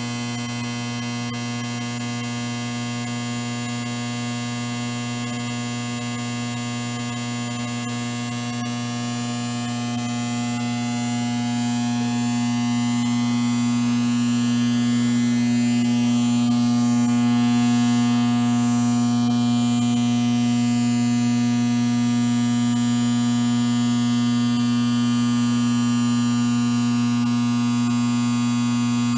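Steady electrical hum and buzz: a low drone with many overtones, growing a little louder between about ten and fourteen seconds in.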